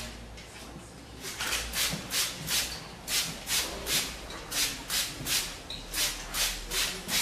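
Trigger spray bottle spritzing water onto long hair in quick, evenly spaced squirts, about three a second, starting about a second in.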